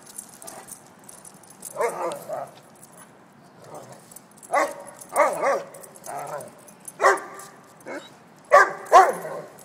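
Two Weimaraners barking in play as they wrestle: short pitched calls in little clusters every second or two, the loudest two near the end.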